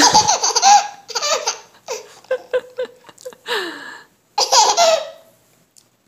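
Seven-month-old baby laughing in a run of short bursts, stopping about five seconds in.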